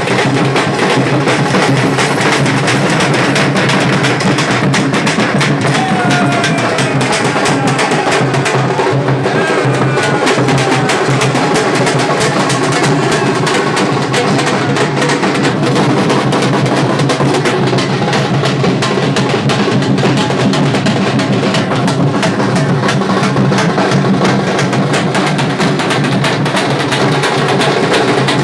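Loud, continuous drumming with music, a dense unbroken run of percussion strokes.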